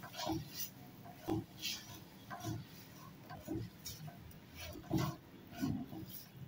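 Spatula scraping and knocking against a non-stick pan as chowmein is tossed and stirred: irregular soft knocks and scrapes, about one or two a second.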